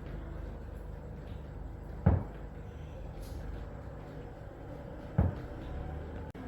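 Two dull thumps about three seconds apart over a steady low rumble.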